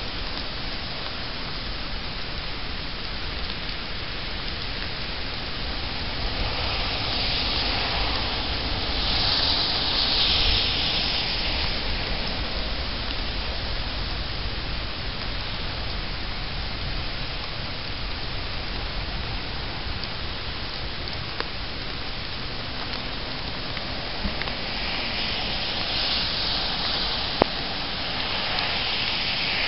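Steady rain falling, swelling louder twice, once about a third of the way through and again near the end, with a couple of sharp ticks late on.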